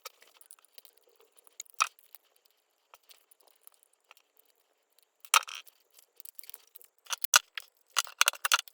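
Scattered small clicks, taps and rattles of plastic and metal laptop parts being handled as the hard drive is worked out. There are single sharper clicks about two seconds in and again around five and a half seconds in, and a quick run of them near the end.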